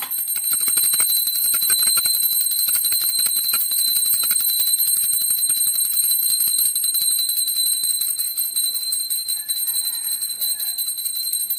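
Small brass puja hand bell rung rapidly and without pause, a fast stream of clapper strikes under a steady high ringing tone, then cut off abruptly.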